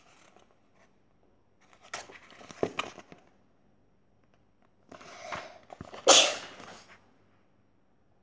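A child sneezing once, loudly and sharply, about six seconds in, after a short breathy lead-in. Earlier, a few seconds of rustling with a few sharp clicks as the paperback book is handled.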